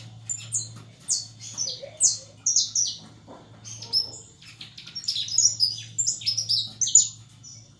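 Male canary in heavy moult chirping and calling in many short, high, quick notes rather than full song, over a steady low hum.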